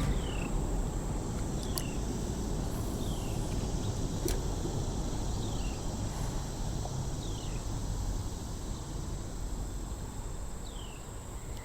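Summer riverside ambience: a steady high insect drone over a low wash of outdoor noise. A short falling chirp, likely a bird, repeats every second and a half or so, with a couple of faint clicks.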